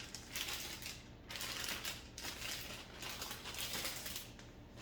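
A plastic zipper-lock bag rustling and crinkling in several bursts as pieces of raw rib are packed into it.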